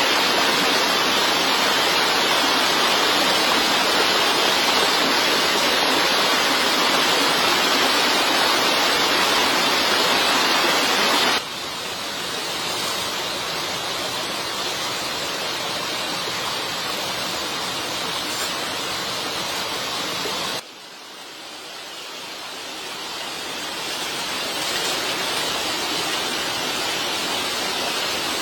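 Steady rush of water, an even hiss with no distinct drops or clicks. It steps down abruptly in level about eleven seconds in and again about twenty seconds in, then slowly rises.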